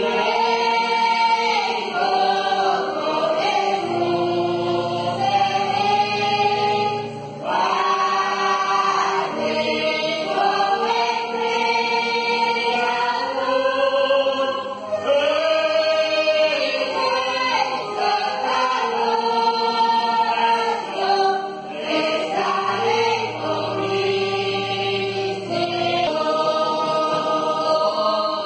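A congregation singing a hymn together, in long held phrases with short breaks between them, accompanied by a keyboard.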